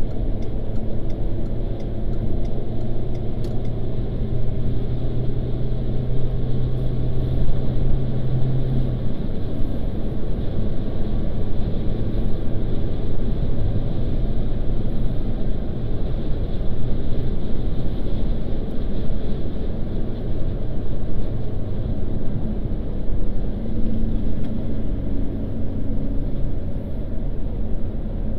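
Car driving on the open road, heard from inside the cabin: steady engine and tyre rumble. A low engine hum sits on top of it and stops about nine seconds in.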